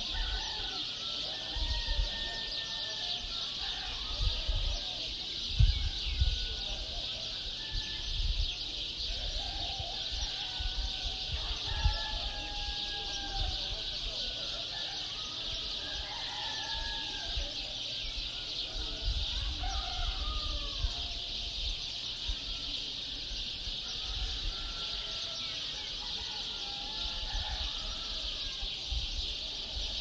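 Dawn chorus of birds: many short chirps and gliding calls overlapping, over a steady high hiss, with occasional low rumbles underneath.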